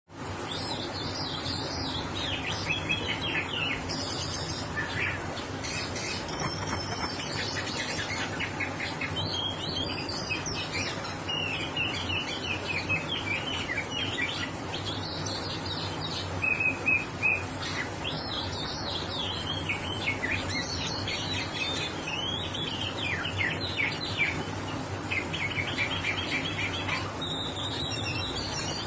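Oriental magpie-robin (kacer) singing continuously in fast rolling phrases of quick whistles and trills. The song is packed with imitated calls of other birds.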